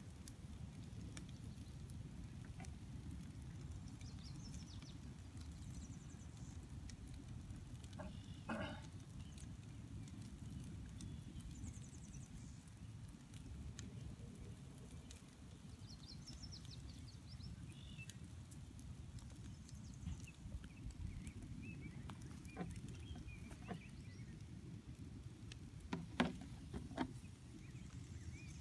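Riding lawn mower burning: a low steady rumble of the flames with scattered pops and cracks, the loudest a couple of seconds before the end. Birds call faintly.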